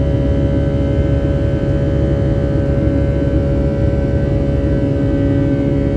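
Cabin noise of a Boeing 757-300 climbing after takeoff: the jet engine under the wing running steadily with a deep rushing roar, over which a few humming tones drone without change.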